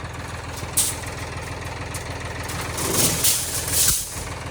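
Vehicle engine idling steadily, with a sharp click just under a second in and a brief hissing rush around three to four seconds in.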